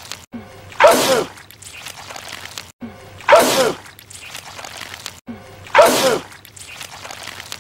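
A man's loud sneeze, the same sneeze repeated three times about two and a half seconds apart as a looped clip. Each is a sudden sharp burst with the voice falling in pitch. Between the sneezes is a faint background that cuts out briefly just before each one.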